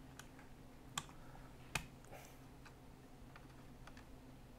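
Sparse small clicks and ticks of an M-LOK rail section and its fasteners being handled and fitted against an air rifle's slotted handguard, with two sharper clicks about one and nearly two seconds in, over a faint steady hum.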